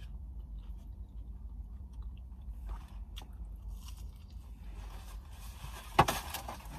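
Close-up chewing and biting of a crunchy taco, with small crunches and mouth sounds. About six seconds in there is a sharp crackle and rustle as the cardboard food box is handled.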